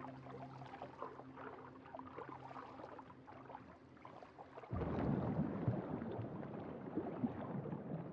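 Water sounds with soft bubbling and gurgling. A louder rush of water starts suddenly a little past halfway through.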